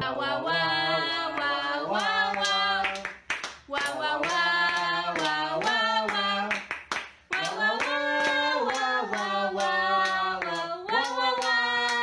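People singing a tune in sustained phrases, with steady hand claps about twice a second keeping time.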